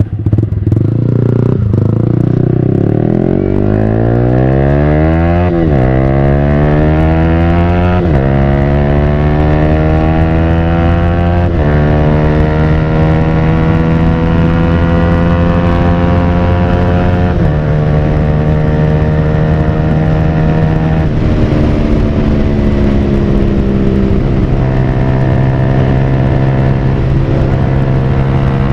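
Yamaha R15 V3's single-cylinder engine breathing through a Villan Pro1 full-system aftermarket exhaust, accelerating from a pull-away. Its pitch climbs in each gear and drops abruptly at five upshifts, about 5, 8, 11, 17 and 21 seconds in, then holds fairly steady at cruising speed.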